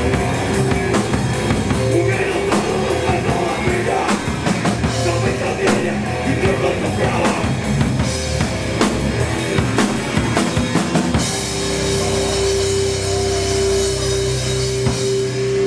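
Hardcore band playing live: fast, dense drum kit with distorted bass and guitar. About eleven seconds in the drumming stops and a single held chord is left ringing.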